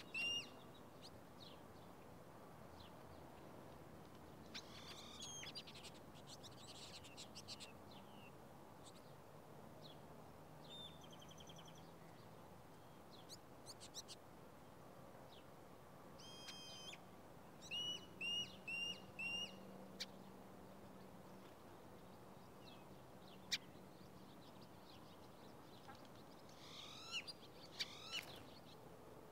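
Small songbirds chirping and calling in short scattered phrases, including a run of four clear repeated notes a little past the middle. A single sharp click comes about four-fifths of the way through.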